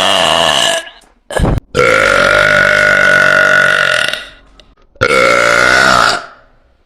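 A woman's very loud, long, drawn-out burps: one trails off about a second in, then a brief sharp sound, then a burp of about two seconds held at a steady pitch, and another of about a second near the end.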